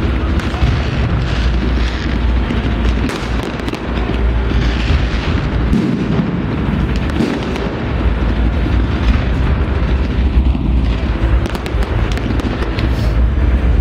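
Fireworks display going off continuously: many overlapping bangs and crackles with no pause.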